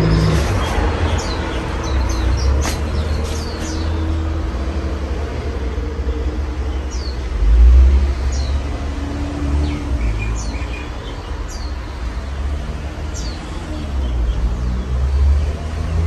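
A Casablanca Mercury ceiling fan running with five blades, heard as a low rumble of moving air that swells and fades. Birds chirp in short falling notes about a dozen times throughout.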